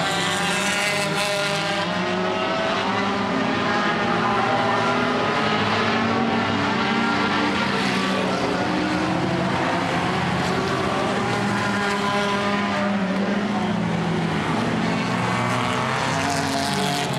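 Several four-cylinder dirt-track race cars running around the oval, their engines revving up and falling back and overlapping as they pass.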